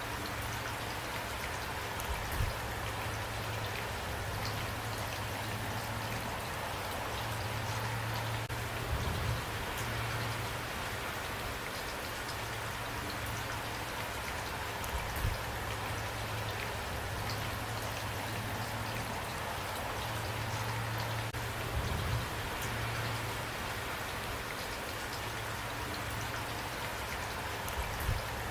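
Steady rain falling and pattering on surfaces, with a few brief, louder low thuds scattered through.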